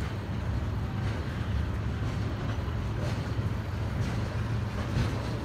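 Freight train of tank cars rolling past below, a steady low rumble of steel wheels on the rails.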